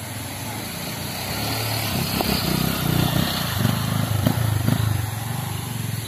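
Small motorcycle engine running and revving unevenly as the bike is ridden over a log bridge; it grows louder about two seconds in.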